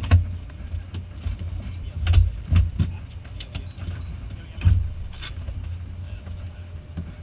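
Handling noise in a light-aircraft cockpit: scattered knocks, clicks and paper rustles as a clipboard and papers are handled, over a steady low rumble that swells irregularly.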